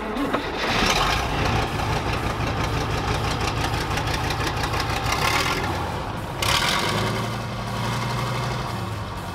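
Tatra truck's diesel engine starting on starting fluid after sitting for a while, then running steadily. The sound changes about six and a half seconds in.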